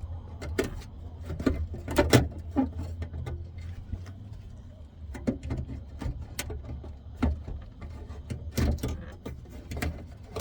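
Irregular clicks and knocks of a car-door speaker and door parts being handled and fitted into place, over a steady low hum.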